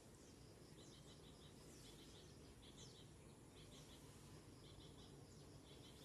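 Near silence: faint room tone with faint, high-pitched chirps in short groups of three or four, repeating about once a second in the background.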